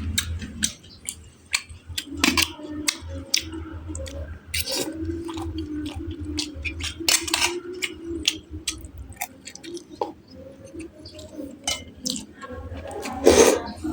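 Mouth-close eating sounds: chewing with frequent short clicks and clinks of utensils against dishes.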